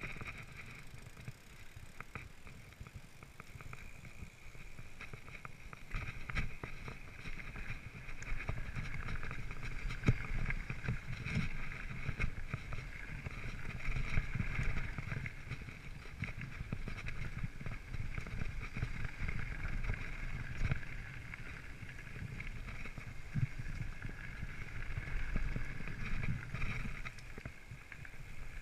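Mountain bike descending a bumpy dirt trail: tires rumbling and the frame and parts rattling with many small knocks over the rough ground, louder from about six seconds in, with a steady higher hiss over it.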